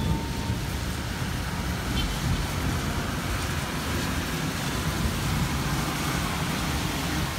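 Strong storm wind buffeting the microphone: a steady, gusting low rumble with a hiss of wind above it.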